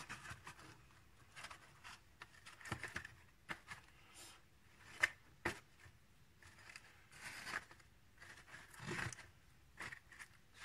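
Paper origami infinity cube being flipped over and over by hand: faint rustling of folded paper with scattered soft clicks and taps as the paper cubes fold against each other, one sharper click about five seconds in.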